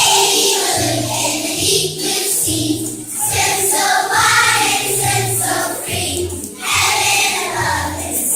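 A group of children singing a song together over musical accompaniment with a steady bass line.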